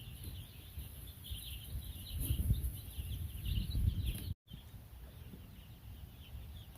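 A flock of young chicks peeping, a dense chorus of short high chirps, over a low rumble. The sound drops out for a moment about four seconds in.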